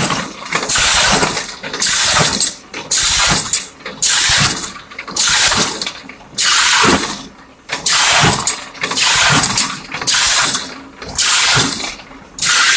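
PVC pipe drilling machine cutting holes into plastic pipe for a submersible well strainer, with a hissing cut repeating about once a second as the cutter runs through the pipe again and again.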